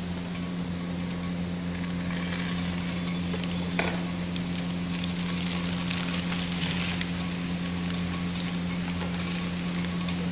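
Sealed plastic packets rustling and crinkling as they are handled and opened, over a steady low hum; one sharp snap about four seconds in.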